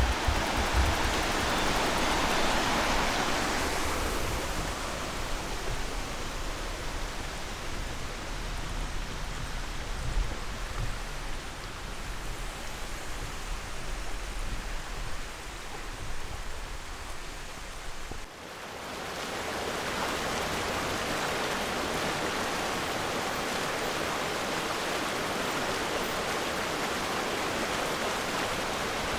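Steady rushing of wind over the microphone with road noise while riding a recumbent trike, with some low buffeting in the first few seconds and a brief dip about eighteen seconds in.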